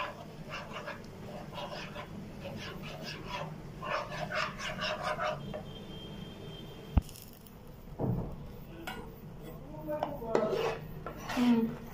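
Metal spatula scraping and stirring a bubbling butter, flour and milk white sauce in a frying pan, with a single sharp knock about seven seconds in.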